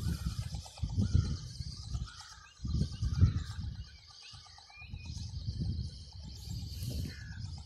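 Gusty wind buffeting the microphone of an RC ornithopter in flight, rising and falling in irregular low rumbles. Birds chirp in the background.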